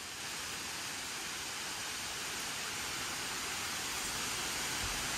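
Rainstorm: a steady hiss of falling rain that grows slightly louder, with a low rumble coming in near the end.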